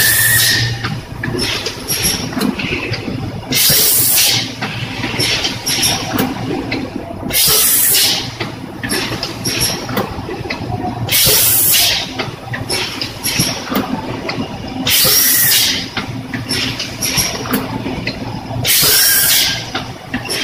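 Rotary premade-pouch filling and sealing machine running in its cycle: a short, loud hiss of air about every four seconds, with light mechanical clicking and clattering between the hisses over a steady low hum.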